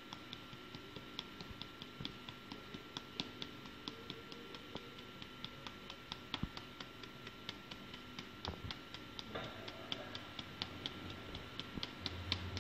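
Hand tapping the side of a metal mesh sieve to sift flour: a steady run of light ticks, several a second.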